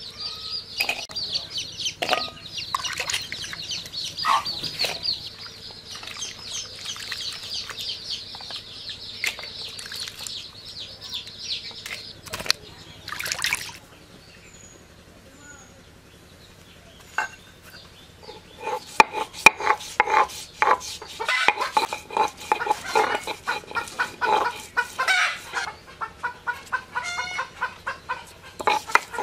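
Village yard ambience of chickens clucking and small birds chirping, with water sloshing and splashing as cut potatoes are washed by hand in a clay bowl. About two-thirds of the way through, rapid repeated knocks start, from a stone roller crushing garlic on a flat grinding stone.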